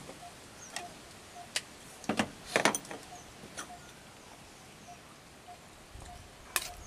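Small sharp clicks and clinks of a syringe, glass vials and metal tubes being handled, with the loudest cluster about two and a half seconds in and another click near the end. Under them a faint short tone repeats about twice a second.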